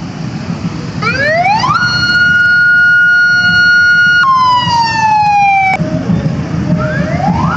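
A siren wails: it rises about a second in, holds a steady high tone for a couple of seconds, then drops and slides downward before cutting off, and starts rising again near the end. Motorcycle engines run underneath.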